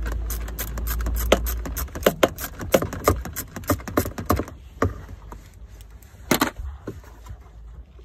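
Socket ratchet clicking in quick, uneven runs as a 10 mm bolt is backed out of a car's centre console, then a few knocks of metal tools, the loudest a sharp double knock about six and a half seconds in.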